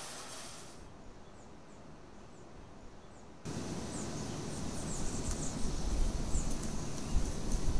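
Outdoor ambience with small birds giving short high chirps over a steady hiss. About three and a half seconds in, the background suddenly gets louder, with a low rumble and a few low thumps.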